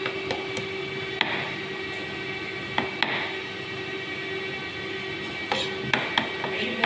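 Irregular sharp knocks and clicks from hand work on a kitchen counter, a few near the start, two around three seconds in and a cluster near the end. They sound over the steady hum of commercial kitchen exhaust ventilation.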